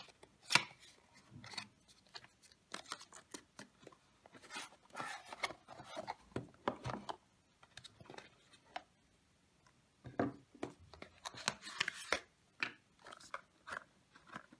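Cardboard packaging being handled: a paperboard box opened at its tab flap, an inner box and its cardboard tray taken out, giving scattered scrapes, rubs and light taps. There is a quieter stretch of about two seconds in the middle, then a busier run of handling noises.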